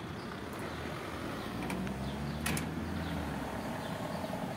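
Street traffic, with a car engine running past, low and steady for a couple of seconds midway, and a sharp click about two and a half seconds in.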